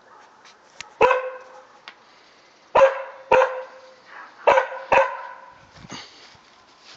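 A dog barking: five sharp barks, one alone and then two quick pairs.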